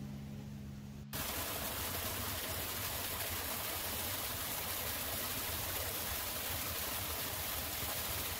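Small waterfall splashing steadily down a rock wall into a pool, a constant rushing hiss that cuts in abruptly about a second in. Before that, a few steady low musical tones are heard briefly.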